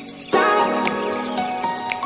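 Music: a held chord that starts sharply about a third of a second in and slowly fades.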